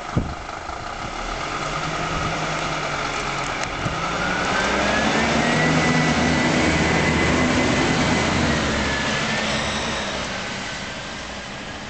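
Scania P270 fire engine's diesel engine pulling away, revving up through its gears, with a whine that rises with the engine. It grows loudest as the truck passes, the whine drops in pitch, and then it fades as the truck drives off. A single sharp knock comes right at the start.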